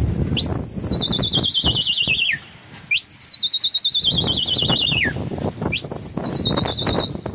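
A pigeon flyer's shrill, warbling whistle, blown three times. Each blast lasts about two seconds, sweeps up at the start and then slowly falls in pitch, and the third is still going near the end. It is the call used to keep a flock of pigeons flying, heard over a low rumble.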